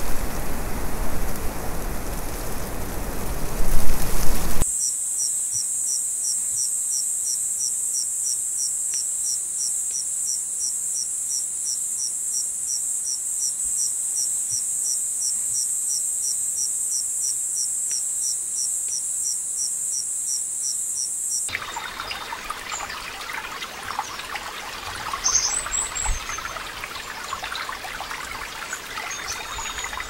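A rushing noise gives way abruptly to insects trilling: a steady high trill with a chirp repeating about three times a second. About 21 seconds in it cuts to a flowing stream, with a brief bird call a few seconds later.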